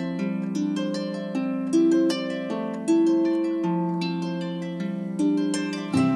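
Background music: a harp playing a slow melody of plucked notes that ring on.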